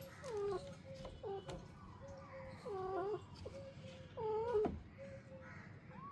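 Kitten meowing, four short meows that fall in pitch, spaced about a second or so apart, over a faint steady tone.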